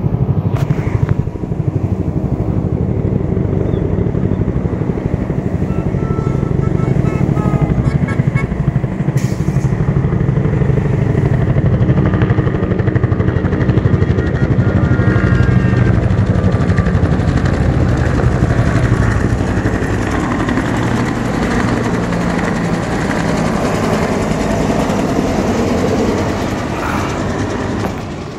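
Two-bladed helicopter flying overhead: a steady, rapid beat of the main rotor over the engine's drone, growing slightly fainter near the end.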